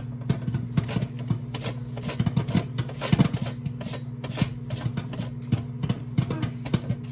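Irregular sharp clicks and taps, bunched most densely about two to three seconds in, over a steady low electric hum.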